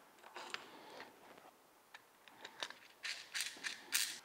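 Small metal hardware being handled and fitted on a dolly caster, clinking and scraping lightly as bolts, washers and the wheel go together. Scattered single clicks give way to a quick run of clicks and rattles in the last second or so.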